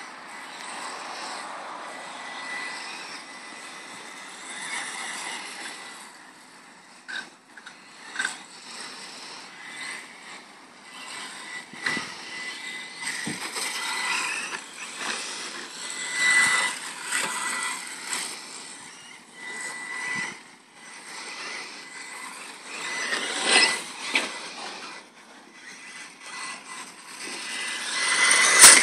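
Electric radio-controlled cars, an Associated SC10 4x4 short-course truck and a Durango DEX410 buggy, driving laps on an artificial-turf track: a whining motor and drivetrain sound that rises and falls as they accelerate and brake. Several short knocks come from the cars hitting the track.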